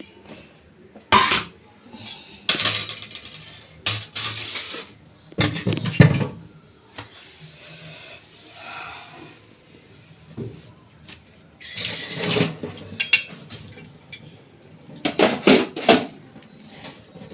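Kitchen dishes and utensils being handled: a series of separate clinks and knocks at irregular intervals, several of them loud, with a cluster near the end.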